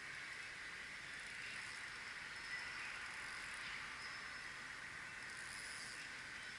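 Spinning reel being wound steadily while a hooked asp is played on a bent rod: a continuous high whirring hiss.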